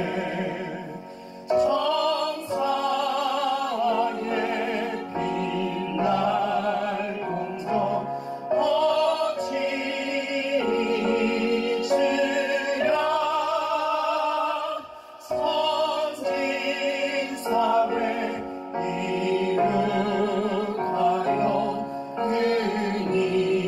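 Background music in an operatic style: a singing voice holds long notes with a wide vibrato over a slow accompaniment.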